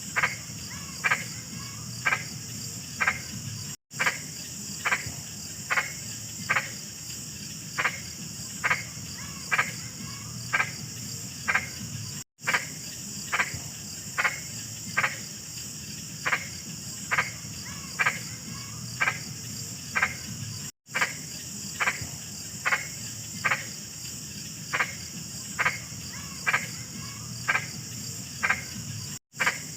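A large frog croaking over and over, a short call roughly once a second, over a steady high chorus of crickets or insects. The sound cuts out completely for an instant about every eight seconds.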